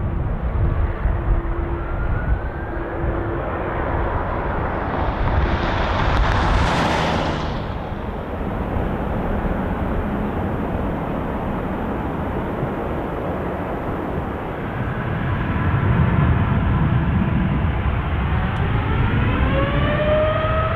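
Jet airliner engines running loudly with a deep rumble, a hissing rush swelling and fading about six seconds in, and a whine that rises in pitch near the end.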